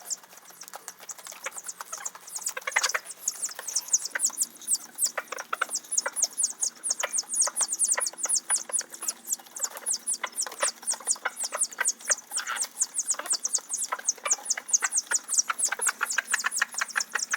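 Chicks peeping constantly in a dense stream of quick, high chirps, with scattered light taps among them.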